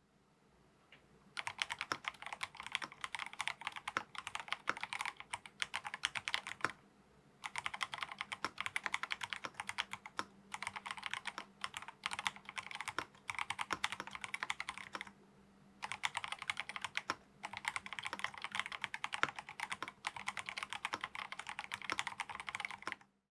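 Fast typing on a MelGeek Pixel mechanical keyboard: dense runs of key clacks in several bursts, with short pauses between them.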